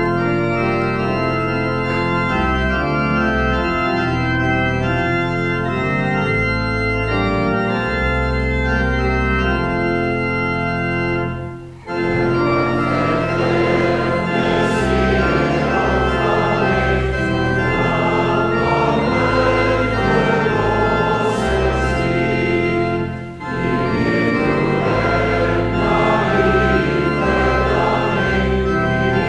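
Church organ playing a hymn's introduction in held chords. After a short break about twelve seconds in, a congregation joins in, singing the hymn with the organ, with a brief pause between lines about twenty-three seconds in.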